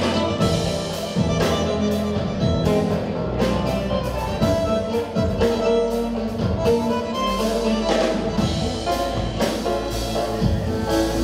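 Electronic tango band playing live, with a steady beat.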